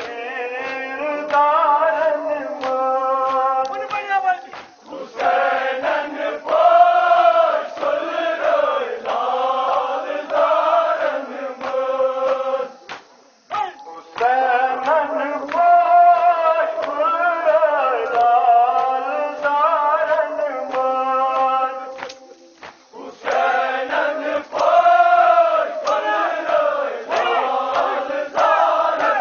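Men's voices chanting a Kashmiri nohay, a Shia mourning lament for Muharram, in long sung phrases with brief pauses between verses. Sharp slaps recur through the chant, in keeping with matam chest-beating.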